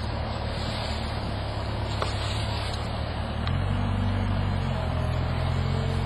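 Engine powering the truck-mounted pot handler, running steadily as a low hum. About three and a half seconds in, its note steps up and gets a little louder, as the boom works the clamped tree pot.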